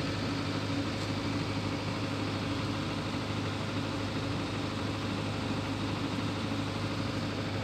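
Generator set's engine running steadily close by, a constant low hum with no change in speed.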